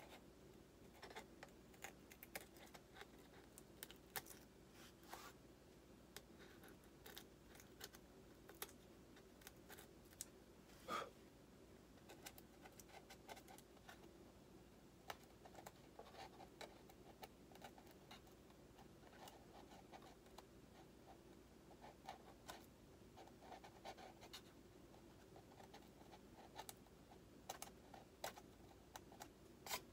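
Hobby knife cutting and scraping at the edge of a cut-out in a foam model-jet wing: faint, irregular small clicks and scratches, with one louder click about eleven seconds in.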